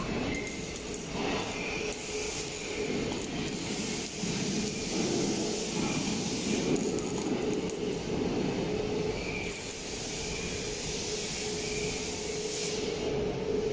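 Arc welding on a steel truck chassis: a steady hiss and crackle over a constant machine hum.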